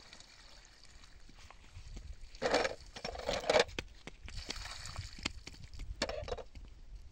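Dishwashing by hand in a plastic basin: water splashing and pouring over a plastic tray as it is scrubbed, with two louder splashes between about two and a half and four seconds in.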